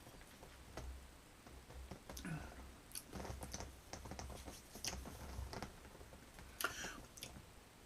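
Faint mouth sounds of a sip of barley wine being tasted: a few soft smacks and short clicks scattered through, over a low rumble.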